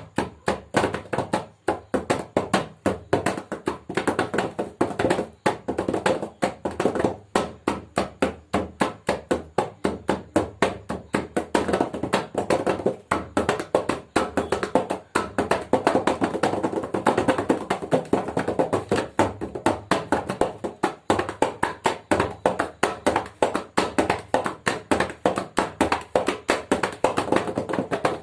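Hands beating rapidly and steadily on a surface, a continuous run of slaps at about three to four a second.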